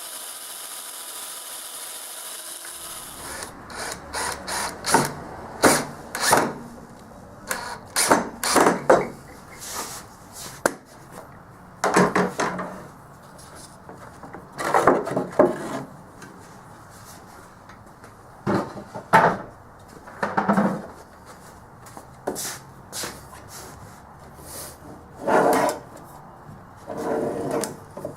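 A drill boring into wood to mount a drawer slide: a few seconds of steady running, then a string of short, separate bursts as holes are drilled.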